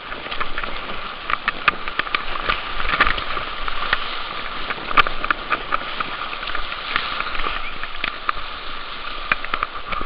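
Whitewater rapid rushing around an inflatable kayak, a steady hiss broken by many irregular sharp splashes of water close by.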